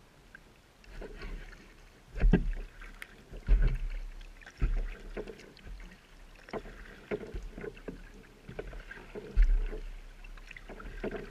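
Kayak paddle strokes splashing and dripping in calm water. The first second or so is quiet; after that come repeated strokes every second or two, several of them with a dull low thump.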